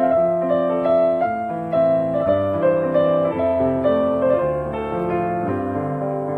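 Background keyboard music: a melody of held notes moving over a lower bass line at a steady level.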